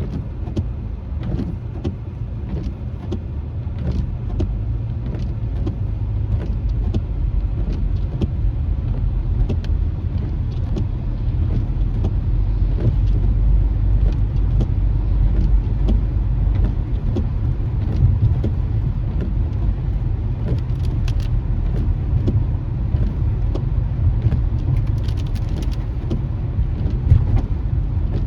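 Road noise heard from inside a moving car's cabin: a steady low rumble with faint scattered ticks, swelling slightly a few seconds in.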